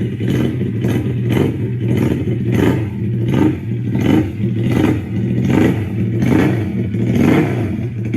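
Recorded Ducati motorcycle engine revving in repeated short swells over a steady running note.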